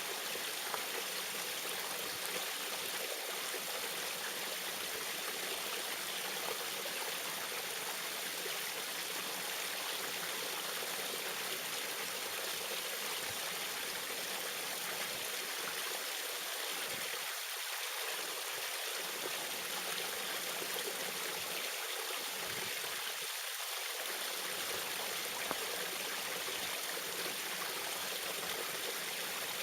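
Small waterfall splashing and trickling steadily, an even rush of water.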